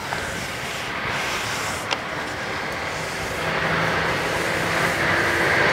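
Electric clothes iron pressed and slid over a sheet of paper on a padded ironing board, a steady scraping rustle that grows louder, with a sharp click about two seconds in; it is fusing interfacing to the fabric underneath.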